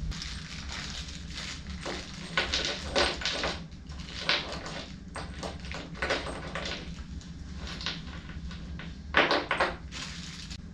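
Parts of a miter saw stand being handled and fitted: an irregular series of knocks, clacks and rattles, the loudest a little before the end.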